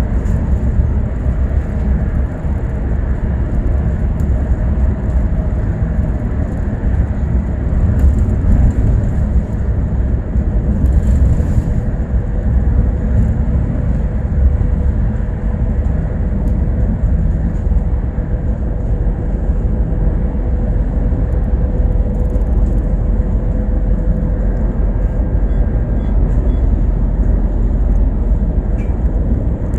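Bus in motion heard from inside: a steady low rumble of engine and road noise, with a faint steady whine through most of it.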